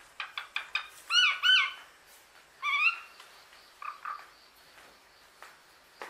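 Common hill myna calling: a quick run of clicks, then two loud gliding whistles close together and a third about a second later, followed by a few softer notes.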